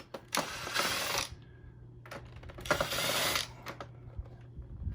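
A screwdriver working screws out of a vacuum cleaner's plastic housing: two bursts of rapid mechanical clicking and rattling, each about a second long.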